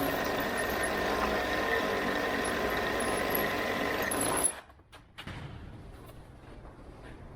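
A machine running steadily with a faint whine, cutting off abruptly about four and a half seconds in and leaving a quiet background.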